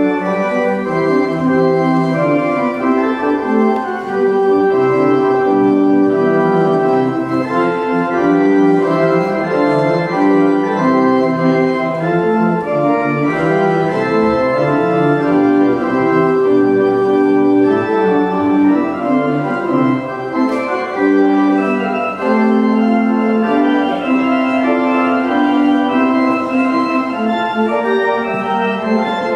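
Church organ playing a closing voluntary after the dismissal: sustained chords that change every second or so, without a break.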